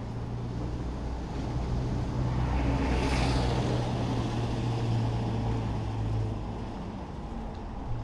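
A motor vehicle passing by: a steady engine hum and noise that swell to a peak about three seconds in, then fade out after about six seconds.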